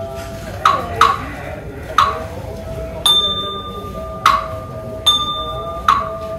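Small metal ritual bell struck seven times at an uneven pace, roughly once a second, each strike ringing on briefly before the next.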